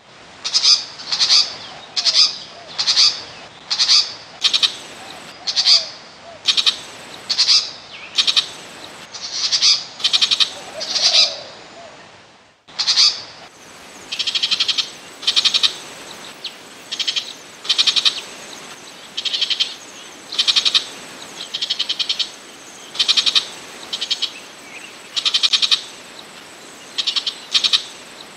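Burmese shrike calling over and over: short chattering calls made of rapid notes, about one a second, with a brief break about halfway through.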